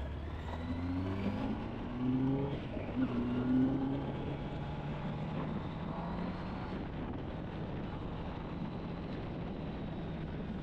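Kawasaki Ninja ZX-10R's inline-four engine accelerating, its pitch climbing in several short steps over the first four seconds as it is shifted up, then running steadily at speed. Heavy wind noise rushes over the microphone throughout.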